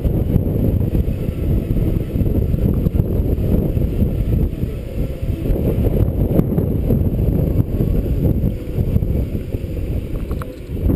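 Wind buffeting the microphone of a camera riding on a moving Segway: a loud, steady low rumble.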